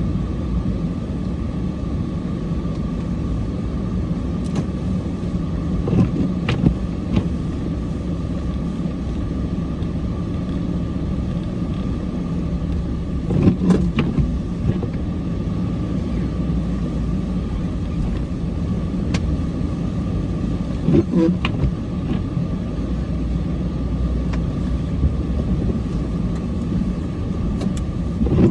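Cummins diesel pickup truck running steadily under load while plowing snow. A few short thumps and clunks come through, about six, thirteen and twenty-one seconds in.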